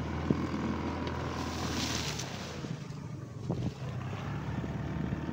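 Fishing boat's engine running steadily at sea, with wind noise and water rushing past; a louder swash of water comes about two seconds in.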